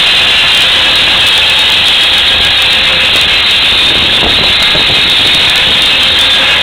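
Tractor-driven buzz saw blade on a 1939 Case RC cutting through a firewood log: a loud, steady, high-pitched cutting noise over the low hum of the tractor engine running.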